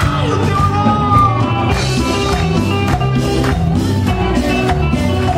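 Live band playing dance music: a steady beat with a bass line and a melody over it.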